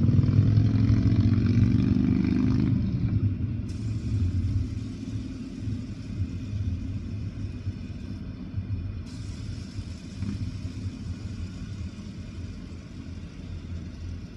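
Motor vehicle engine noise: a loud low rumble with a pitched engine hum for the first few seconds, which then drops off sharply to a quieter, steady low rumble of idling traffic.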